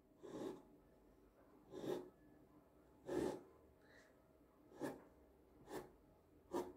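Sharp knife cutting slits through puff-pastry dough onto a wooden board: six short, soft cutting sounds about a second apart.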